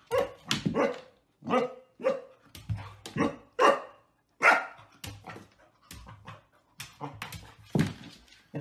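Golden retriever puppy barking at its own reflection in a mirror: a string of short, high yaps at uneven spacing, some loud and some faint, as it paws and play-bows at the glass.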